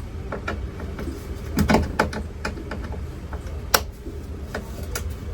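Scattered light clicks and knocks of hand tools and trim parts being worked on a truck door's inner panel, with a louder clatter about two seconds in and a sharp click near four seconds, over a steady low hum.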